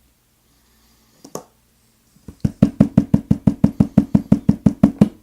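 A brass oval lock cylinder is knocked repeatedly against a hard surface, about six sharp knocks a second for nearly three seconds, to shake a driver pin out of its chamber. A single click comes about a second in.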